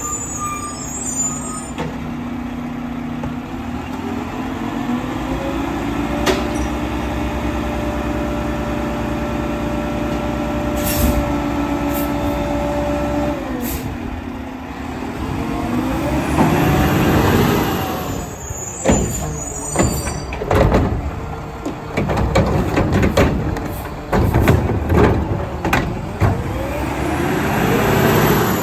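Mack LR garbage truck's engine revving up and holding high revs for the hydraulics of its McNeilus Meridian front loader with Curotto Can arm, then dropping back and revving again. Air brakes hiss, and from about two-thirds of the way through there is a run of sharp metal clanks and bangs.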